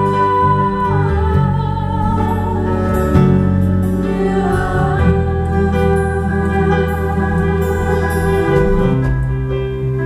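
A young woman singing a slow melody live with band accompaniment. Her voice holds long notes with vibrato over a bass line that changes every second or two.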